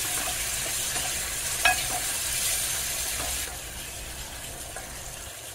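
Chopped tomatoes sizzling in hot spiced oil in a metal kadai while a metal spoon stirs them, scraping and giving a ringing clink against the pan about one and a half seconds in. The sizzle drops a little about three and a half seconds in.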